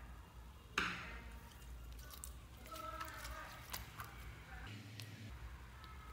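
Hand-kneaded slime squishing, with one loud squelch about a second in, then small sticky clicks and crackles as a hand presses into a tub of mixed slimes.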